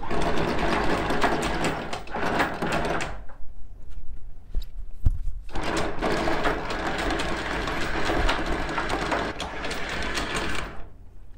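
Anchor windlass hauling in the anchor chain in two runs: one of about three seconds, a short pause, then one of about five seconds.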